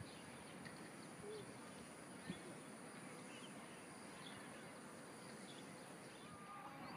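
Faint outdoor ambience: a steady background hiss with a thin high-pitched steady tone and a few faint, short bird chirps. There is one brief click a little over two seconds in.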